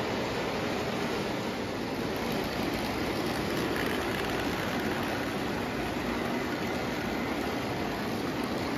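O gauge electric toy train, a small steam locomotive pulling freight cars, rolling on three-rail tubular track: a steady rumble of wheels on the metal rails.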